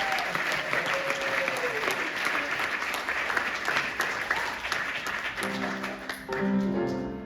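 Audience applauding, the clapping thinning out, then piano chords starting about five and a half seconds in.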